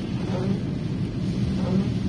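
Steady low rumble of a car driving on a rain-soaked road, heard from inside the cabin, with faint swells recurring about every second and a quarter.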